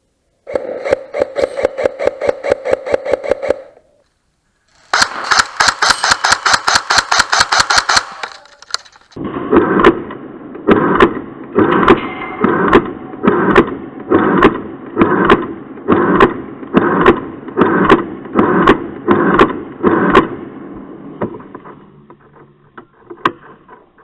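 CYMA AKM airsoft electric gun firing two long full-auto strings, each a run of fast, even clicks from the gearbox cycling, with a short pause between them. After the second string comes a rhythmic sound that swells and fades a little faster than once a second for about twelve seconds.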